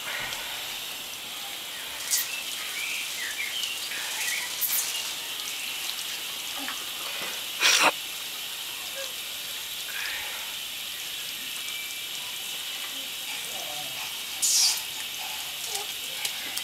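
Flower-shaped toy lawn sprinkler spraying water with a steady hiss, broken by about four short louder bursts.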